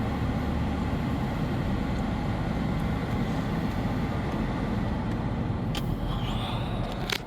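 Steady road and engine noise heard inside a moving car's cabin, with two sharp clicks near the end.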